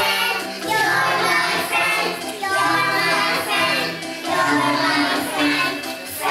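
A group of young girls singing a song together in phrases.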